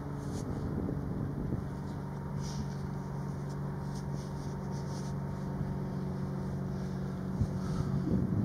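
Distant tugboat's diesel engine droning steadily across the water, a low even hum. Wind buffets the microphone near the end.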